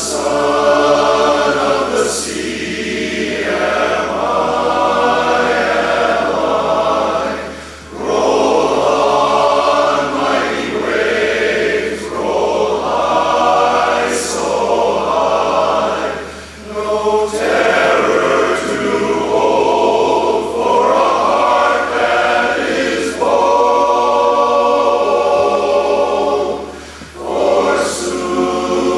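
Men's barbershop chorus singing a cappella in close harmony, in long held phrases with brief breaks between them about every eight seconds.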